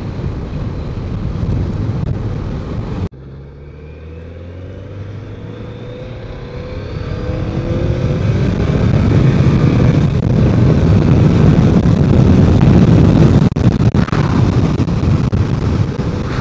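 BMW K1200 motorcycle's inline-four engine accelerating hard, its pitch rising steadily for several seconds as wind rush builds to a loud roar. There is an abrupt break about three seconds in, before which steady wind and road noise is heard.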